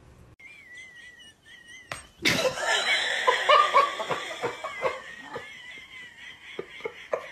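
A person laughing hard, breaking out suddenly about two seconds in and loudest for the next few seconds before trailing off into scattered bursts. Before that there is a thin, high, wavering sound.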